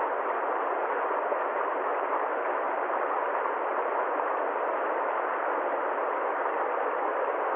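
Steady, even noise, like a muffled hiss or rumble, with no changes, strokes or pitched tones.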